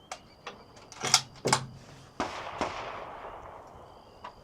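Gunshots: two short cracks about a second in, then a louder shot a little after two seconds whose echo trails off over nearly two seconds.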